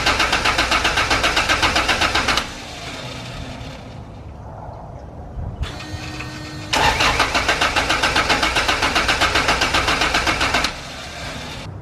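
Honda Civic hatchback's four-cylinder engine cranking on the starter in two long attempts, the first stopping about two and a half seconds in and the second lasting about four seconds, with an even beat of about five pulses a second. It turns over but never catches after a distributor swap, and the battery is going dead.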